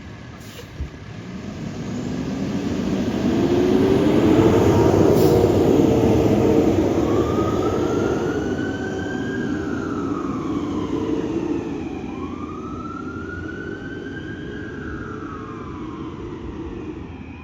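Fire engine sirens on a run. A low siren tone winds up over the first few seconds and holds, and from about halfway an electronic wail rises and falls twice in slow sweeps, over the steady noise of the truck's engine.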